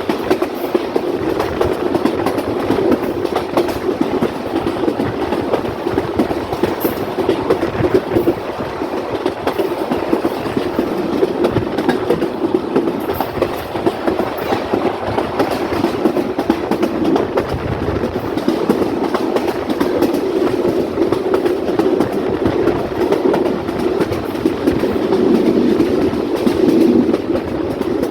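Rangpur Express passenger train running along the track, its coaches' wheels clattering steadily over the rails with a dense run of clicks, growing slightly louder near the end.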